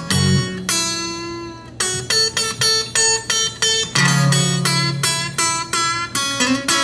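Acoustic guitar with a capo, played solo as a blues intro: a strummed chord, then a steady, even run of picked notes with a bass note ringing under them near the end.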